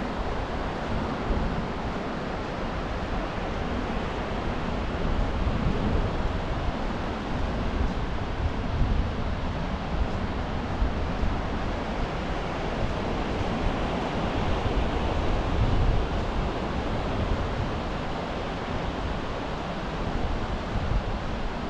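Surf breaking and washing up a sandy beach, a steady hiss that swells and eases slightly, with wind rumbling low on the microphone.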